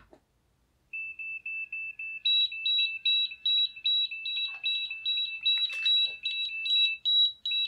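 Easy BBQ Bluetooth thermometer app's temperature alarm beeping from a smartphone speaker: rapid high-pitched beeps, about four a second, starting about a second in and joined a little later by a second, higher beep, together a super annoying alarm. It signals that the probe reading has passed the set maximum temperature.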